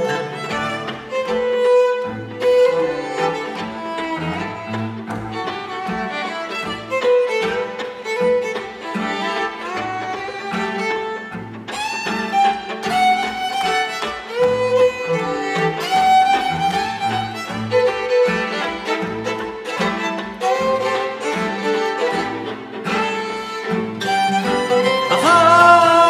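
String quartet playing with ouds in an arrangement of Sudanese music, over a repeating low bass line. About twelve seconds in, the upper strings come in louder and higher.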